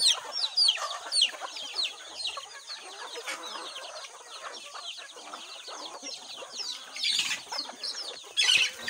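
A flock of free-range chickens: chicks peeping constantly in quick, high, falling peeps, with hens clucking lower beneath. Two brief scuffling noises come near the end.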